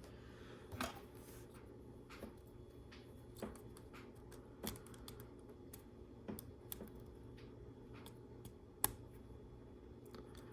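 LEGO Technic plastic pieces clicking and tapping as they are handled and pressed together: scattered, irregular small clicks over a faint steady hum, with one sharper click near the end.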